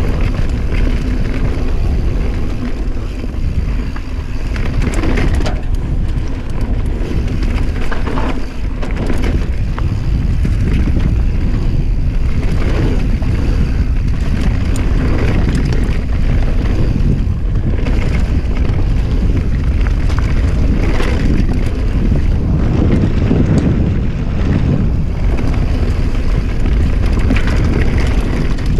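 Wind buffeting the camera microphone while a Norco mountain bike descends a dirt trail, its tyres rolling over packed dirt and loose rock and the bike rattling and knocking over bumps throughout.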